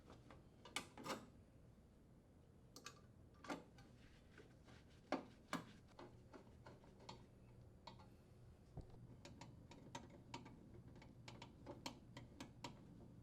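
Faint clicks and knocks of a Phillips screwdriver and the sheet-metal junction box being handled, a few separate clicks at first, then from about seven seconds in a run of quick light ticks as the screws are driven back in.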